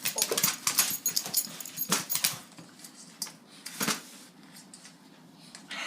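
Dog at its food bowl with a pet bird: a quick run of sharp clicks, scrapes and rattles for about two seconds, then one sharp knock a couple of seconds later.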